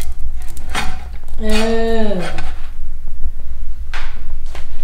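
Metal spatula clinking and scraping against a black frying pan as a cooked pancake is lifted out, a few sharp clicks in all. About a second and a half in, a person's voice makes one drawn-out sound that falls in pitch, under a steady low hum.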